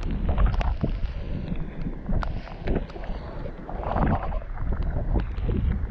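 Wind buffeting the microphone in gusts, a low uneven rumble, with scattered sharp clicks and knocks.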